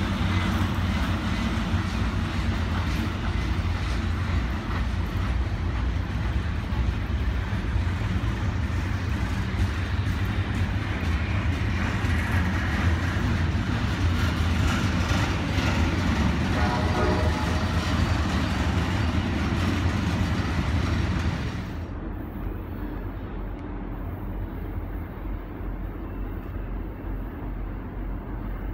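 Freight train of empty bulkhead flatcars rolling past on curved track: a steady loud rumble and clatter of wheels and cars, with a brief squealing tone about two-thirds of the way through. About 22 seconds in the sound cuts to a quieter, duller low rumble of a diesel locomotive approaching from a distance.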